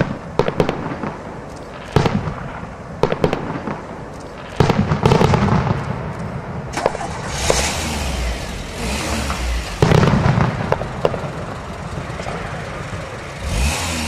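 Aerial firework shells bursting with sharp bangs every second or two. About halfway through, several bursts overlap into a denser spell of bangs and crackling.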